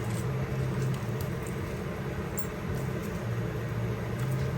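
A steady low machine hum under a faint noise, with a few light clicks.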